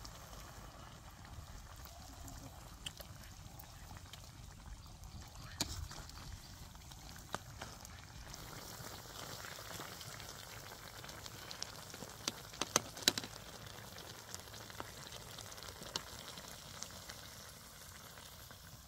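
Broth bubbling in a wok with a whole duck over a wood fire. Occasional sharp clicks are heard, with several close together about twelve seconds in.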